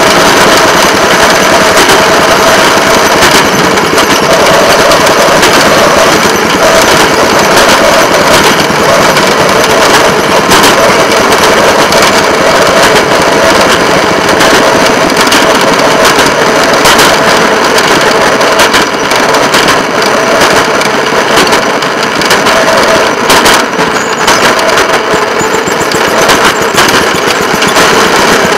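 Rail motorcar (speeder) running along the track, its engine and wheels making a loud, steady rapid rattle.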